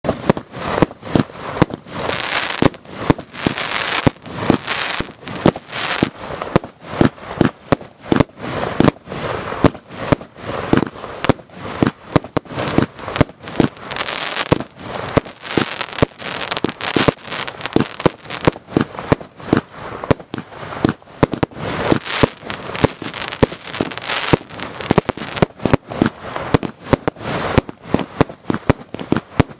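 Aerial fireworks going off at close range: a rapid, irregular string of sharp bangs from shots launching and shells bursting, with crackling and fizzing between them.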